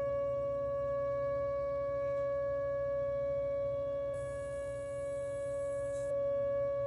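Whelen WPS 2909 electronic outdoor warning siren sounding a steady, unwavering tone with no rise or fall in pitch. A faint hiss joins it for about two seconds in the middle.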